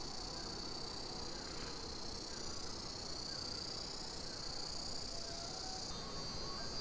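Steady, high-pitched chorus of insects shrilling; the mix of pitches shifts slightly near the end.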